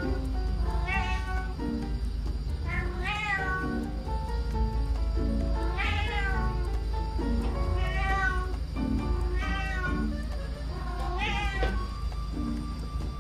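Domestic cat meowing repeatedly: about six long, loud meows, one every couple of seconds, each rising then falling in pitch.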